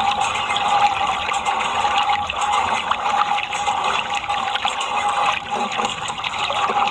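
Water running and splashing steadily, as when muddy toys are rinsed, with a faint steady hum underneath.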